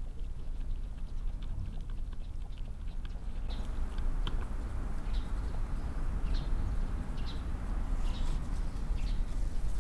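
Cat eating dry kibble from a plastic bowl: small, irregular crunching clicks a few times a second, starting about three and a half seconds in, over a steady low rumble.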